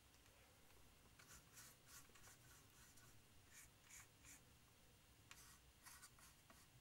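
Faint pencil strokes scratching on a plastic model aircraft wing: a run of short, irregular scratches.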